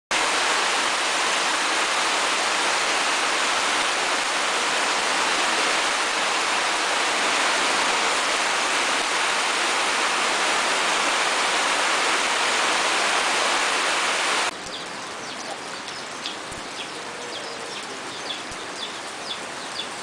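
Heavy rain pouring down in a steady hiss. About fourteen seconds in it drops abruptly to lighter rain, with many short high chirps over it.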